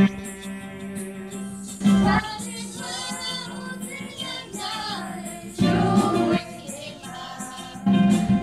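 Small group of young women and men singing a Christmas carol together, women's voices leading, over instrumental accompaniment that swells loud every two to three seconds.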